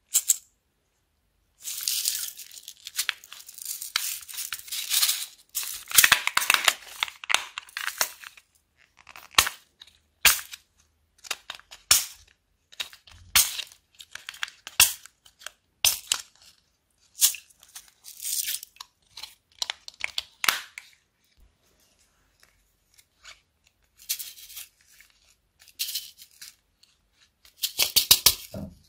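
Clear plastic nail-art storage boxes being handled: lids clicking open and shut, and rhinestones and sequins rattling in the compartments. Near the end comes a quick run of clicks as a round wheel-shaped rhinestone case is turned.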